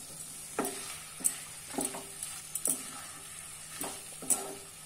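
Wooden spatula scraping and stirring cauliflower florets through thick masala in a kadai, in irregular strokes about once or twice a second, over a faint sizzle of frying: the cauliflower is being sautéed in the spice paste.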